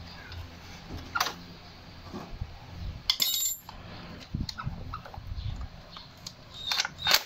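Metal tool work on the exposed clutch of a Yamaha Sniper 150: scattered clicks and knocks from a screwdriver and a socket on the clutch adjuster screw and its lock nut, with a brief louder burst of noise about three seconds in and a few more clicks near the end.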